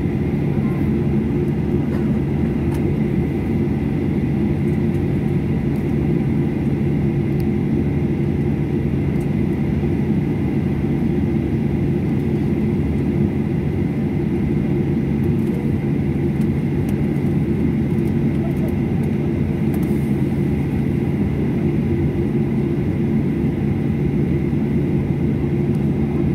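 Steady cabin noise of a jet airliner taxiing, its engines at idle and the cabin air running: a low, even hum with a faint high whine above it.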